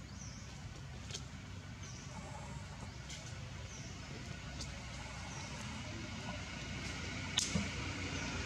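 Low rumble of distant vehicle traffic, slowly growing louder toward the end, with faint repeated short high chirps and a few sharp clicks, the loudest near the end.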